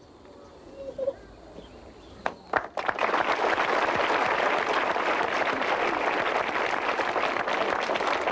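A large crowd clapping, starting suddenly about three seconds in after a quiet moment and then going on steadily.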